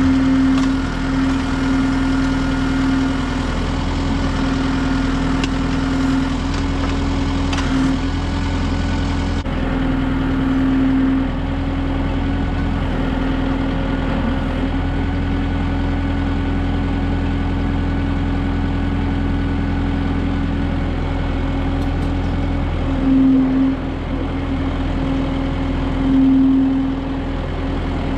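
Kubota M6060 tractor's four-cylinder diesel engine running steadily while it works a backhoe, with a few faint knocks in the first seconds and the engine note swelling briefly twice near the end.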